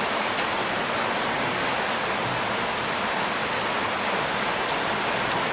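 Rain falling steadily in an even hiss.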